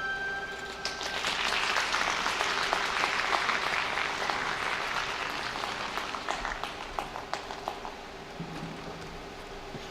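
Audience applauding, with scattered sharp claps. It starts about a second in as the last held note of the skating music dies away, then slowly fades.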